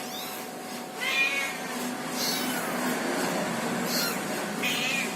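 Cat meowing, several short high-pitched calls, the loudest about a second in.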